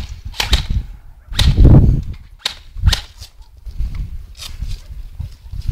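Airsoft guns firing single shots, sharp snaps spaced a second or more apart, the loudest near a second and a half in, over a steady low rumble.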